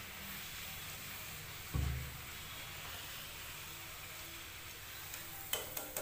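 Puri deep-frying in hot oil in a kadhai, a steady sizzle. A brief low thump comes about two seconds in, and a few light clicks of the steel slotted spoon come near the end as the puffed puri is lifted out.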